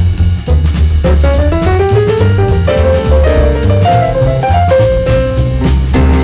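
Upbeat jazz background music: walking bass, piano and drum kit with a quick melodic line.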